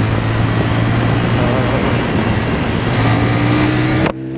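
Kymco Zing 2 motorcycle being ridden, its engine humming steadily under heavy wind noise on the microphone. About four seconds in the wind noise cuts off suddenly and the engine note is heard plainly.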